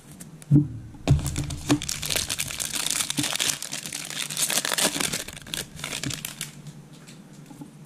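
A few light knocks, then a trading-card pack's plastic wrapper being torn open and crinkled for about four seconds.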